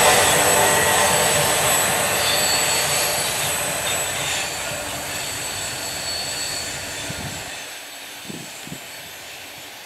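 Last cars of a double-stack intermodal container train rolling away, steel wheels rumbling and clattering over the rail joints with a faint high squeal. The sound fades steadily as the train recedes.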